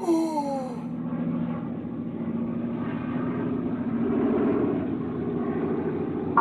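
Airplane engine sound effect: a steady droning hum, opening with a brief falling tone.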